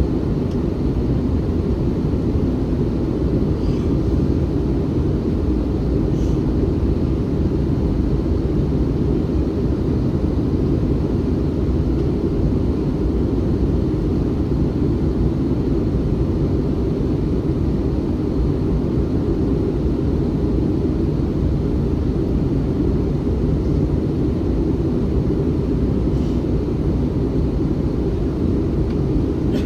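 Steady cabin noise inside an Airbus A321-211 airliner in flight: a dense, even rumble of airflow and its CFM56 engines, with little above the low range.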